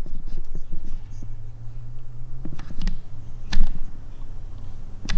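Scattered light clicks and knocks of hands handling tools or parts, a few sharp ones in the second half, over a low hum.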